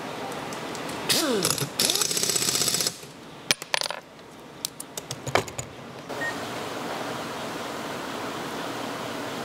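Pneumatic impact wrench running in a burst of rapid hammering for about two seconds, starting about a second in. It is followed by a few sharp metallic clicks and clinks.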